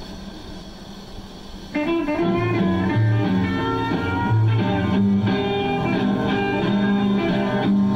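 Rockabilly guitar band recording played from a home-cut 78 rpm disc on an early-1950s Califone Promenade tube record player. The record's surface hiss is heard alone at first, and the music starts abruptly about two seconds in.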